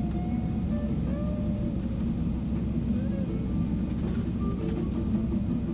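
Steady low rumble of a Boeing 777-300ER airliner cabin on the ground, with faint murmured voices of passengers in the background.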